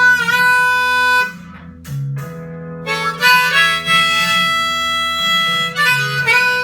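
Blues harmonica break over guitar: long held notes, a dip about a second and a half in, then a run of chords.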